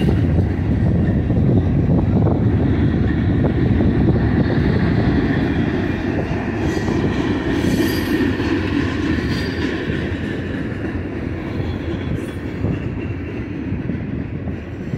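Freight cars of a long manifest train rolling past at speed, mostly tank cars and covered hoppers: a steady rumble of steel wheels on the rails that eases slightly near the end.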